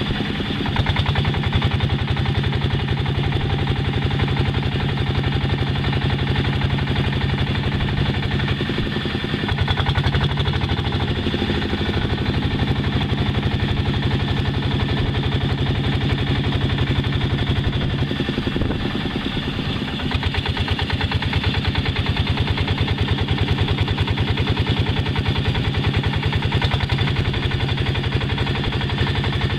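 Long-tail boat's engine running steadily under way, a loud, rapid, even beat of exhaust pulses. Its note dips and shifts briefly about ten seconds in and again around two-thirds of the way through.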